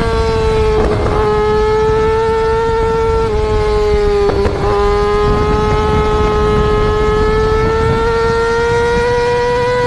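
Yamaha R6's inline-four engine revving high while riding, a steady high-pitched scream. Its pitch dips slightly about a third of the way in, then climbs slowly as the bike accelerates.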